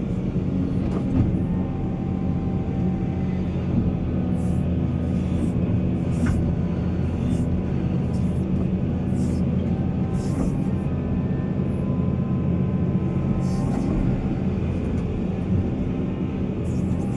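Heavy diesel earthmoving machinery running steadily with a low, even drone, with short hissy bursts every few seconds.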